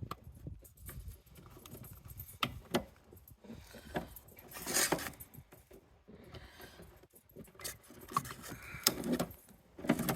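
Scattered metallic clinks and rattles of hand tools and metal parts being handled while a soda vending machine is taken apart, with two longer, louder rustling clatters, one about halfway through and one near the end.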